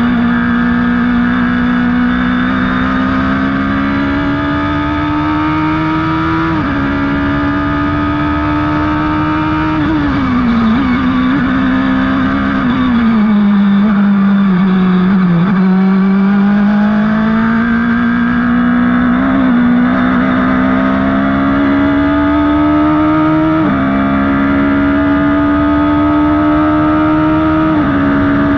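Radical SR3's motorcycle-derived four-cylinder engine at full throttle, heard from the open cockpit with wind rush. The pitch climbs and drops sharply at an upshift about 7 s in. It falls through braking and downshifts from about 10 to 15 s, then climbs again with upshifts near 24 s and just before the end.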